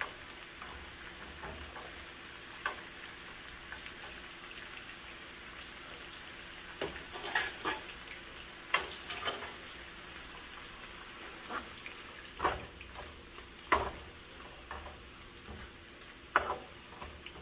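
Oil sizzling steadily as fish fries and vegetables cook in pans, with a utensil scraping and knocking against a pan a number of times in the second half as the food is stirred.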